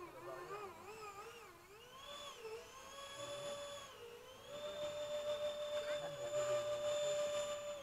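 Radio-controlled model MiG jet flying overhead, its motor giving a high whine that swoops up and down in pitch. After a dip about four seconds in, it holds steady at a higher pitch and grows louder.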